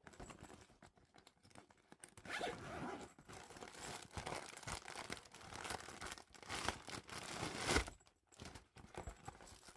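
Merch packaging being opened and handled by hand: a few seconds of rasping, ripping noise that starts about two seconds in and peaks just before a short pause, with fainter handling noises afterwards.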